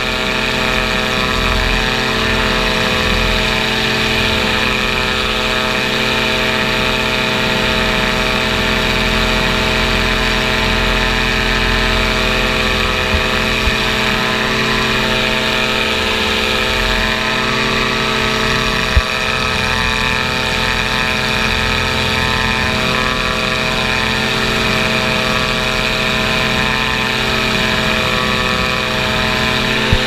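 Powered parachute's engine and pusher propeller running steadily in flight, an unchanging drone, with gusty wind rumbling on the microphone.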